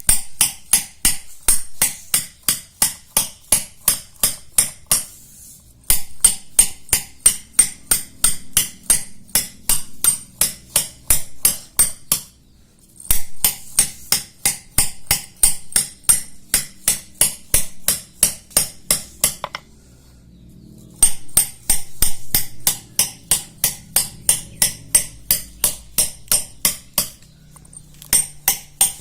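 Rapid, even hammer taps on a steel chisel pecking small pits into the grinding face of a shil pata stone slab to re-roughen it for grinding, about three to four strikes a second with a bright metallic ring. The tapping comes in runs broken by short pauses.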